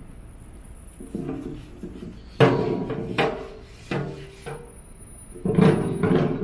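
Music: struck or plucked notes that start sharply and ring on, coming irregularly from about two seconds in, with a faint steady high-pitched tone underneath.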